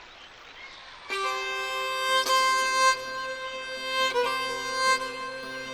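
Music: a bowed string instrument playing long held notes, coming in about a second in after a faint hush.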